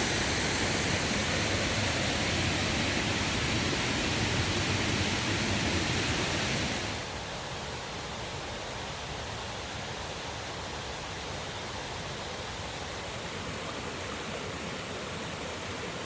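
Waterfall rushing, a steady roar of falling water. About seven seconds in it drops suddenly to a quieter level and then holds steady.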